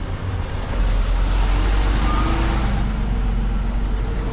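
Air hissing steadily out of a mountain-bike tyre valve as the pressure is let down, starting about a second in, over a low rumble.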